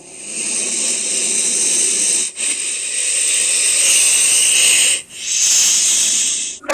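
A loud, breathy hiss in three long stretches, each broken off by a short gap, about two and five seconds in. It is presented as a dinosaur's hiss.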